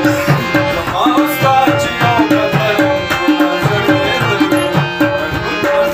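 A Pashto ghazal being performed: tabla drums keep a steady rhythm under harmonium notes, and a man's singing voice rises and falls over them about a second in.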